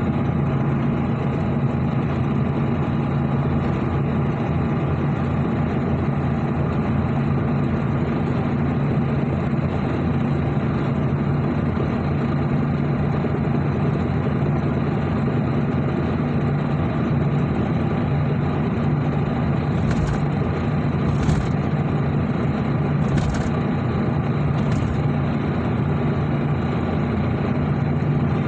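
A vehicle engine running steadily with a constant low hum. Four short clicks come near the end.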